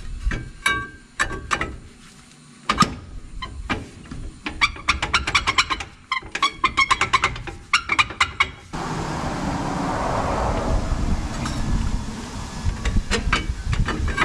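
Metal clicks and clinks from hand work on a car's rear wheel hub and brake drum, some ringing briefly, with a fast run of about eight clicks a second midway. About two-thirds of the way in, a steady rushing noise starts abruptly.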